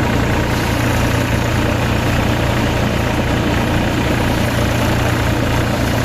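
Engine of a harvesting machine running steadily at a constant speed, with a strong low hum.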